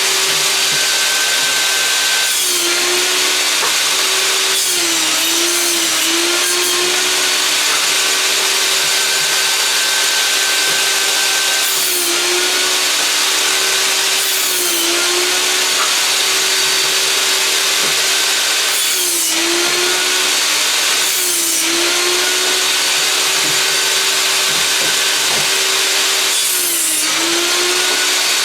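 Einhell table saw running steadily while old boards are fed through it for firewood. Every few seconds the blade cuts through a board and the motor's hum sags briefly under the load, then recovers.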